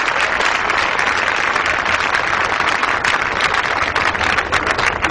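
Crowd applauding steadily, a dense wash of clapping with separate claps standing out more toward the end.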